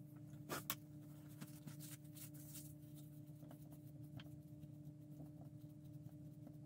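Near silence: a faint steady hum with scattered small clicks and taps, the loudest two close together about half a second in.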